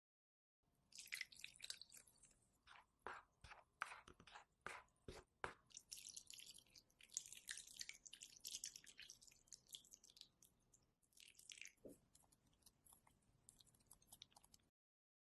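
Close-up food sounds from a bowl of Korean fatty-beef bibimbap, with a quick run of sharp clicks a few seconds in, followed by soft, crackling, hissy sounds.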